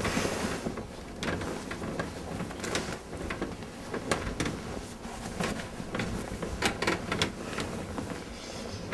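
Bedclothes rustling and shifting, with irregular soft clicks, knocks and scrapes scattered through it.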